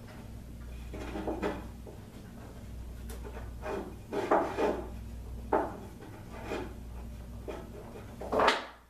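A wooden block rubbed and pushed hard against carpet tiles, a string of irregular scraping strokes, loudest near the end, as it presses a self-adhesive carpet square into a corner seam. A low steady hum sits underneath.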